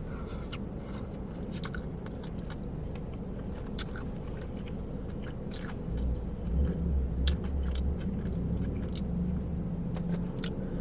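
Close-miked chewing and biting of takeout Chinese food, with scattered small crunchy clicks. A brief low rumble comes partway through.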